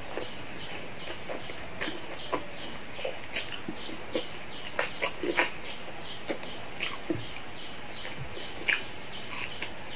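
Close-up chewing and mouth sounds of someone eating French fries: irregular wet clicks and smacks from the mouth and lips.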